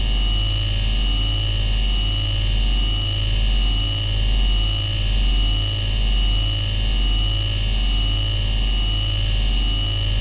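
Synthesized sci-fi force field sound effect: a deep electric hum that pulses roughly every three-quarters of a second, under a steady high-pitched whine.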